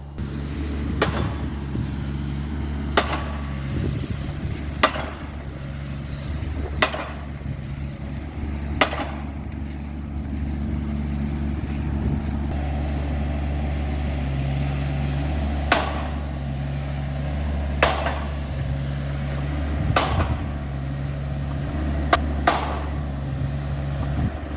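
Machine post driver hammering a post into the ground: a sharp strike about every two seconds, pausing for several seconds midway, over the steady hum of its engine.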